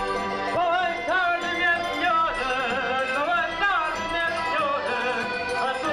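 Folk-style music with a singing voice, its melody wavering and gliding between notes.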